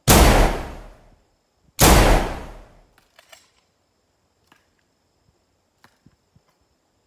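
Two rifle shots about two seconds apart, each loud and sudden with an echoing tail that dies away over about a second. A few faint clicks follow.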